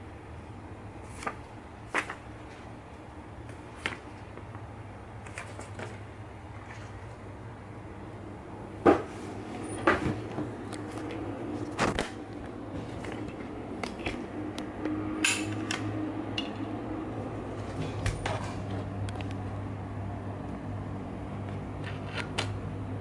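Scattered crinkles and clicks of a paper leaflet and sealed plastic bags of LEGO bricks being handled, the loudest about nine to twelve seconds in, over a steady low hum.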